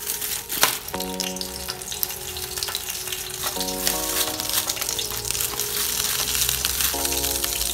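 Oil sizzling and crackling inside a foil-wrapped fish parcel on a hot pan, growing steadily louder, with aluminium foil crinkling as the parcel's edges are folded shut. A sharp tap comes about half a second in.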